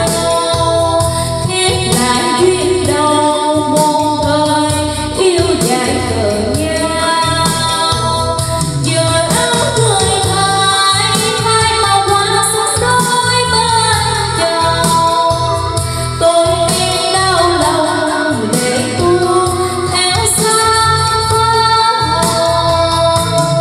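A woman singing a Vietnamese ballad karaoke-style over an instrumental backing track, played through a portable karaoke speaker.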